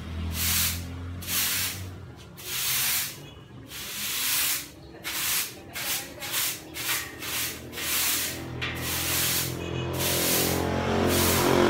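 Broom sweeping a hard floor: brisk, repeated swishing strokes, about two a second. A vehicle engine drones in the background at the start and again from about ten seconds in.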